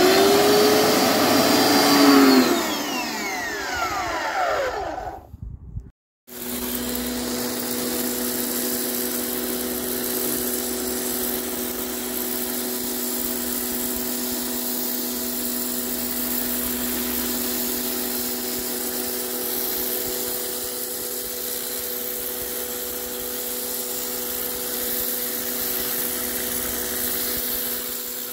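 Electric pressure washer motor switched on, starting loud with a whine whose pitch falls away over about five seconds. After a brief cut it runs with a steady, even hum over the hiss of the water jet spraying paving slabs.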